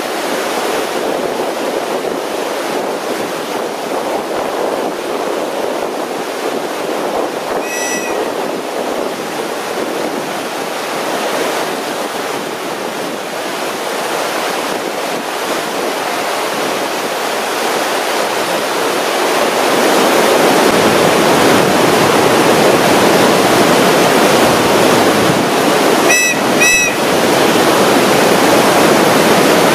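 River whitewater rushing steadily through a rapid's standing wave at a flow of about 60 cubic metres a second. It grows louder and fuller about two-thirds of the way in. A short high chirp sounds about eight seconds in and two more near the end.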